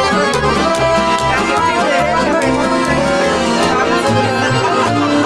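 A live band playing lively traditional music, led by accordion with guitar, over a bass line in steady beats.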